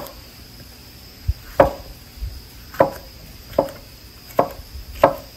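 Knife chopping peppers on a cutting board: about six separate, unhurried chops, each a sharp knock, spaced roughly a second apart.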